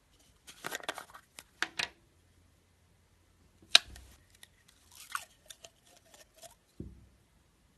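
Slime being squeezed and poked, giving irregular runs of wet crackling and clicking. A sharp snap about a third of the way in is the loudest sound, and a dull thud comes near the end.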